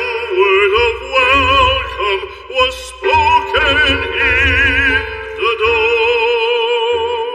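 Background music: a singing voice with a wide vibrato in an operatic style, over a low accompaniment.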